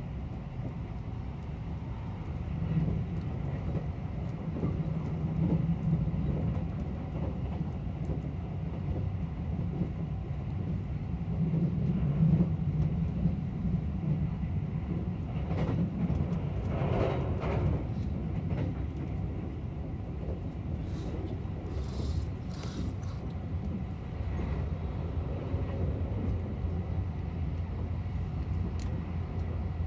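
Limited express electric train running on the line, heard from inside the carriage: a steady low rumble of wheels on rail, with a brief swell of louder noise about halfway through.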